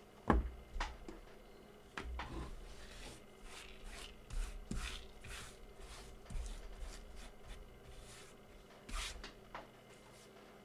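Hand work at a bench: a sharp knock just after the start, then a run of short rubbing or scrubbing strokes with a few light clicks.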